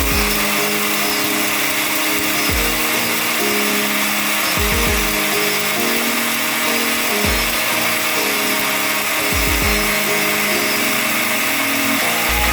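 A small electric kitchen appliance motor runs steadily and loudly over background music with a regular bass beat.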